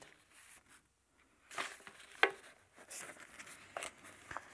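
Paper rustling and crinkling in short, irregular bursts as pages or sheets are handled.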